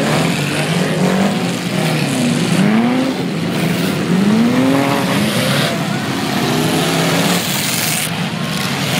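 Engines of a pack of junk race cars running and revving, several pitches rising and falling over a steady drone as the cars accelerate and pass.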